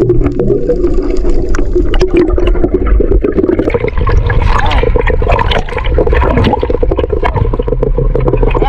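Water bubbling and churning around an underwater camera, then choppy sea water splashing and sloshing at the waterline once the camera breaks the surface about four seconds in.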